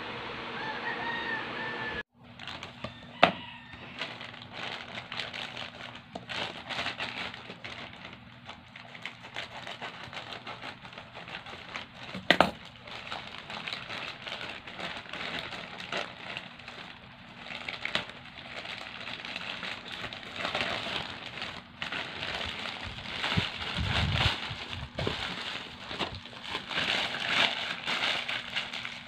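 Plastic courier mailer and bubble-wrap package being handled and opened by hand: steady crinkling and rustling plastic with a few sharp clicks, starting about two seconds in.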